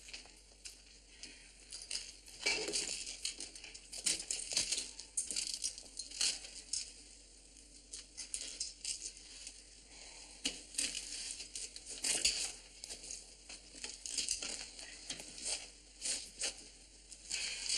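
Irregular crunching, scraping and clattering of rubble and broken wood being pulled apart by hand.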